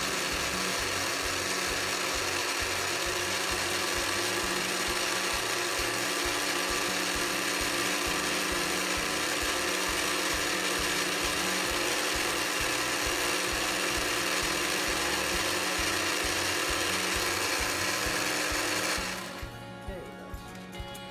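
Senhs electric coffee grinder's blade motor running steadily with a high, even whir, then shutting off by itself about two seconds before the end. A guitar backing track plays underneath and carries on alone after the motor stops.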